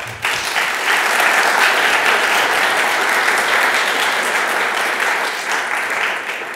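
Audience applauding, the clapping rising quickly at the start, holding steady, then tapering off near the end.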